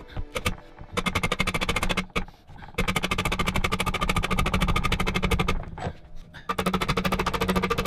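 Rapid, evenly spaced soft-faced mallet blows on the end flange of a pillar drill's steel column, about ten a second with the metal ringing under them, in runs broken by short pauses.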